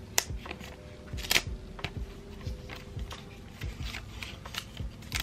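Clear plastic protective film crinkling and crackling as it is pulled and peeled off a small plastic power adapter, with scattered light clicks and taps from handling. One sharper crackle about a second and a half in is the loudest.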